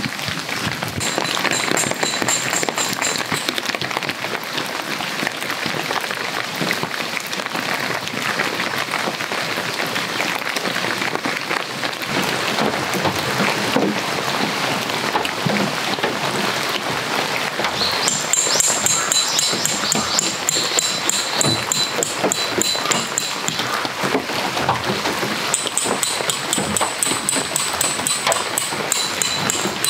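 Steady rain falling, with tent pegs being hammered into the ground. The strikes come in three runs of quick, ringing blows: about a second in, midway through, and near the end.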